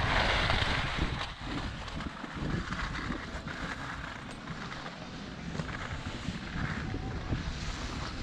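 Wind rumbling on a GoPro's microphone and skis sliding over packed snow, louder for about the first second and then quieter as the skier slows.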